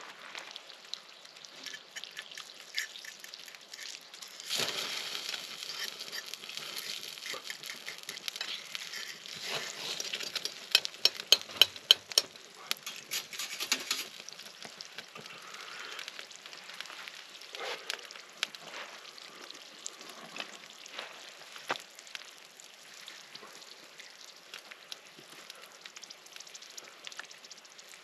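Food frying in a pan over a stick stove, a steady sizzle. It grows louder several seconds in and eases off about halfway through, with a quick run of loud sharp clicks just before it eases.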